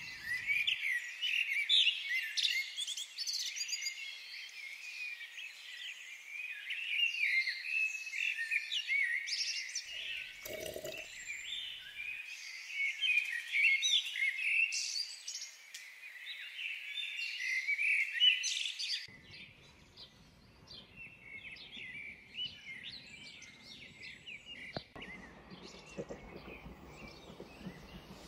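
Many songbirds chirping and singing together in a dense dawn chorus; about two-thirds of the way through it drops to fainter birdsong over a low outdoor background.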